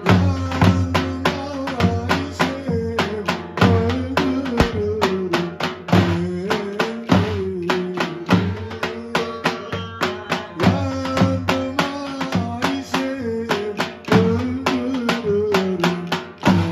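Turkish folk dance music: two davul bass drums beaten with a mallet and a thin stick, pounding a steady dance rhythm under a wavering melody line.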